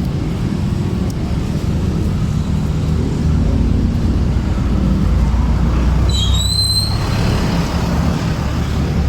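Steady low rumble of road traffic, with a brief high-pitched squeal about six seconds in.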